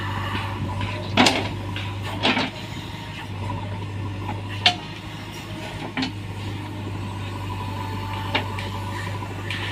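JCB backhoe loader's diesel engine running steadily, with about five sharp metallic clanks spread through it.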